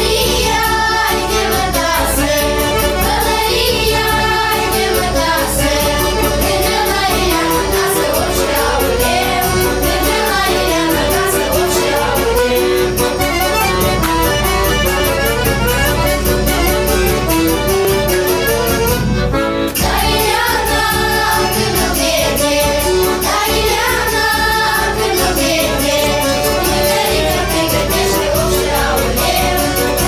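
Women and girls singing a Moldovan folk song together in unison, with a short break about two-thirds of the way through.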